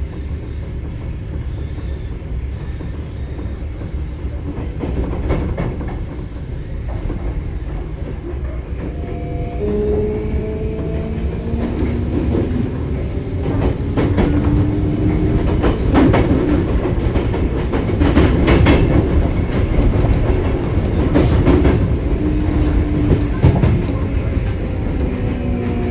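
Sotetsu 9000 series electric train running, heard from inside the car: a steady low rumble with wheels clacking over rail joints. From about ten seconds in, the traction motors' whine rises in pitch in steps, several tones at once.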